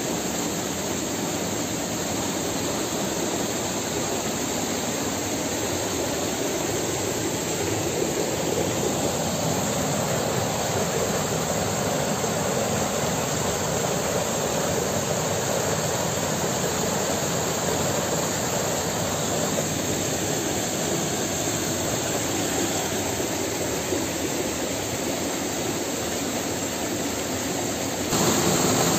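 Cascade pouring into a rock pool: a steady rush of falling water, stepping up suddenly in level near the end.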